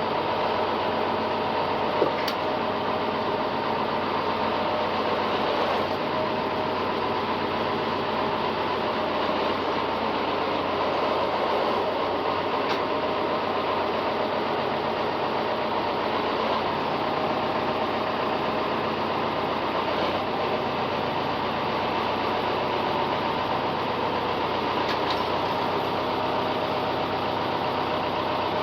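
A farm machine's engine running steadily, with a sharp click about two seconds in.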